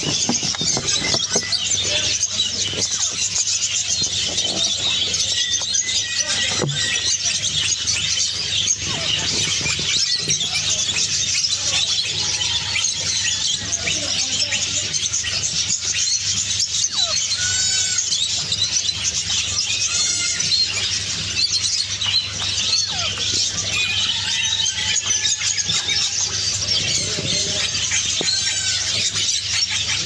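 Dense, continuous chatter of many caged birds: high chirps and squeals overlapping without pause, with a few louder rising-and-falling calls standing out around the middle and near the end.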